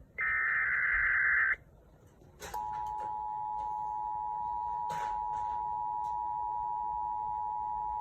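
Emergency Alert System broadcast tones: the last SAME header data burst, a harsh digital screech, for about a second and a half. After a second of silence, the steady two-tone EAS attention signal starts about two and a half seconds in and holds.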